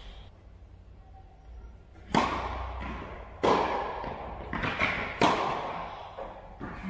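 Tennis rally: a ball struck by rackets, with three loud, sharp hits spaced a second or two apart and lighter ball bounces between. Each hit echoes on in the large hall.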